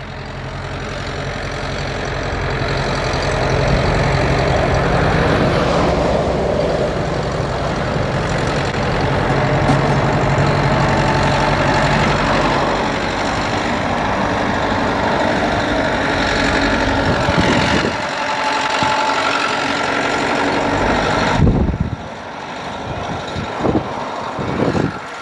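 Ford tractor's diesel engine working hard pulling a plough, swelling over the first few seconds as it comes close and holding steady, with wind buffeting the microphone. The low engine sound falls away sharply about three-quarters of the way through.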